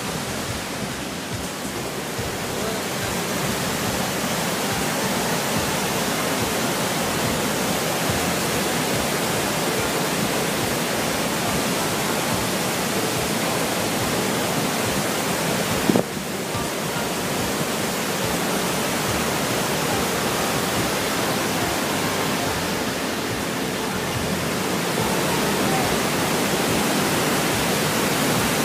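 Large waterfall and its rapids: a loud, steady rush of falling water. A short click about halfway through briefly lifts the level.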